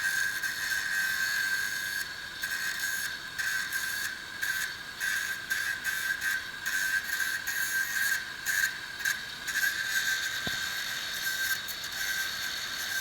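Welding on a car body: a steady crackling, sizzling arc noise, broken by many brief pauses.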